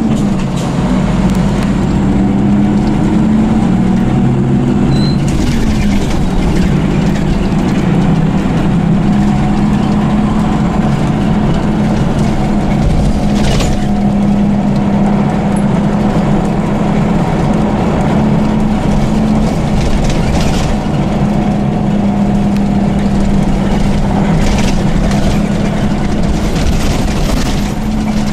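Diesel engine and running noise of an Ikarus EAG E94 bus on Scania running gear, heard inside the passenger cabin while under way: a steady drone whose note drops about five seconds in, with a few short knocks and rattles.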